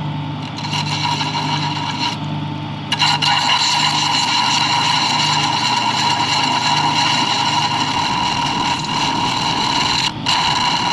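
Small metal-working lathe running while its cutting tool turns down the edge of a wooden disc to size. A steady motor hum runs throughout, and the loud, steady noise of the cut comes in about three seconds in, breaking off briefly near the end.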